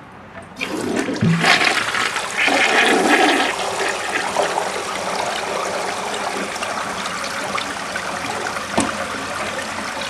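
A 1963 Briggs toilet flushing. A rush of water into the bowl starts about half a second in and is loudest over the first few seconds. It then settles into a steady swirling drain.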